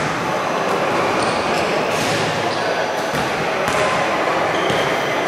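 Basketball bouncing on a hardwood gym floor every second or so, under players' voices talking over one another in the echoing gym.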